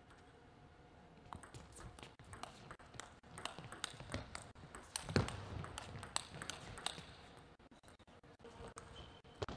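Table tennis rally: rapid, irregular clicks of the ball struck off the bats and bouncing on the table, with a louder thump about halfway through. The clicks thin out and stop near the end.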